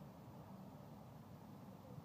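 Near silence: faint, steady outdoor background noise.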